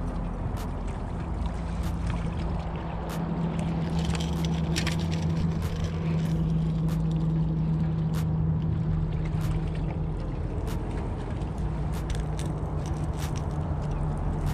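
A steady low motor-like drone, with sharp clicks at even spacing about every 1.3 seconds.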